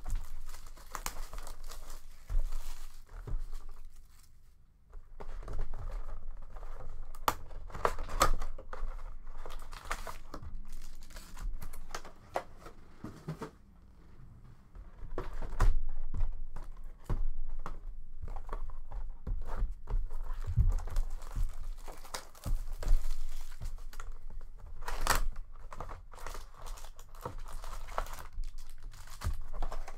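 Plastic shrink-wrap being torn off sealed trading-card boxes and crinkled in irregular crackling bursts, with cardboard boxes handled in between and a couple of brief lulls.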